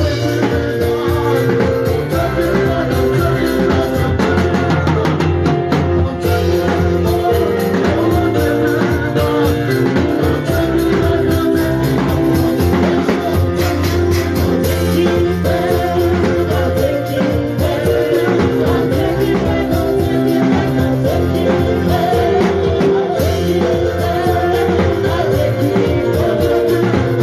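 Worship band music with drums and guitar playing steadily, with some singing.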